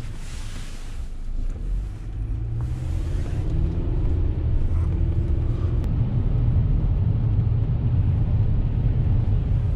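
Car engine and road rumble heard from inside the cabin while driving, growing louder over the first few seconds, then steady.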